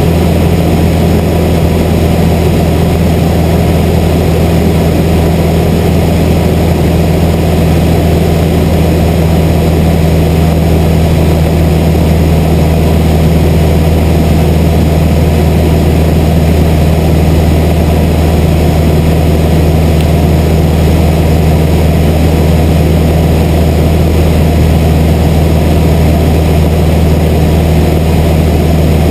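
Light single-engine piston airplane's engine and propeller heard from inside the cockpit: a loud, steady drone at constant power in cruise, with a low hum and cabin noise and no change in pitch.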